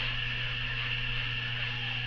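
Steady low hum with an even hiss, unchanging throughout, with no distinct sound events.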